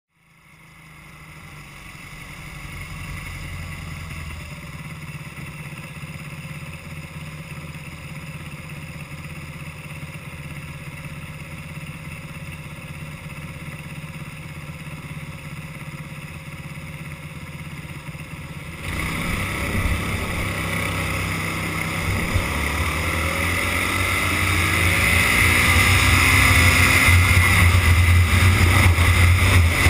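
Racing kart engine heard onboard, fading in and running steadily at low speed. About two-thirds of the way through it gets suddenly louder and revs up as the kart accelerates, its pitch rising and falling through the corners.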